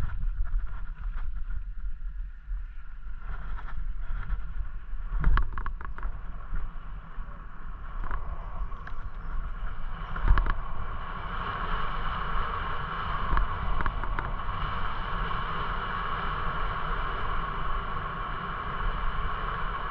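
Wind buffeting the microphone and tyre rumble from a bicycle riding along a country lane, with a few sharp knocks from bumps. About halfway through a steady whine sets in and holds.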